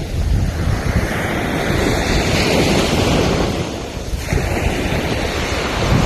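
Ocean surf washing onto the shore, easing off about four seconds in before the next wave builds, with wind buffeting the microphone.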